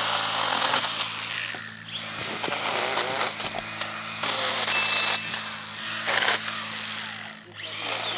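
STIHL GTA 26 battery pruning saw running and cutting through hedge branches in several bursts of a second or two each. The chain noise rises and falls over a steady motor hum, and the loudest burst comes about six seconds in.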